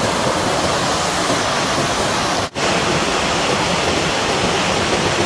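Steady rushing water, like a fast stream or small waterfall, cutting out for an instant about halfway through.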